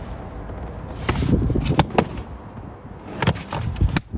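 Rubber all-weather floor mat being lifted and dropped back into the footwell by a gloved hand: a low rubbing and handling rumble with several sharp taps and slaps.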